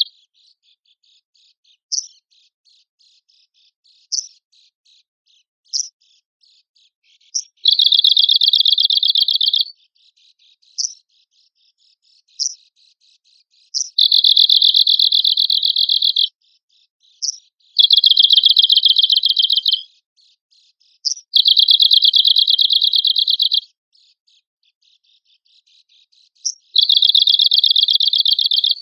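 Arctic warbler singing: five dry, rapid trills of about two seconds each, with single short, sharp call notes spaced between them.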